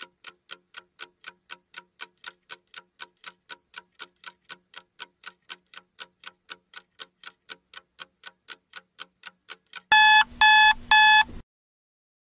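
Quiz countdown timer sound effect: a clock ticking about four times a second, then, about ten seconds in, three loud beeps that mark time up.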